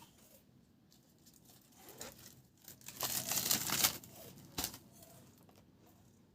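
A rustling, crinkling noise, loudest for about a second in the middle, followed by a single sharp click.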